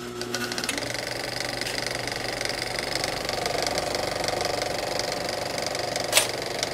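A small motor running steadily with a fast, even rattle and a faint whine, and one sharp click about six seconds in.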